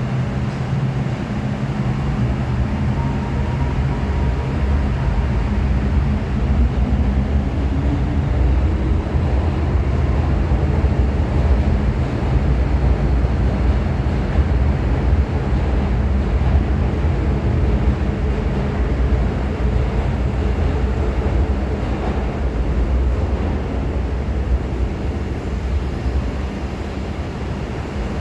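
MTR M-Train electric multiple unit pulling away from a platform: a steady low rumble of wheels and traction motors, with a faint rising motor whine in the first few seconds. The rumble eases slightly toward the end.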